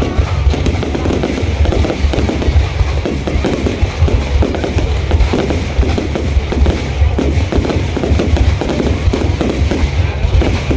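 Fireworks going off in a dense, continuous barrage: rapid overlapping bangs and crackles over a deep rumble, with no pause.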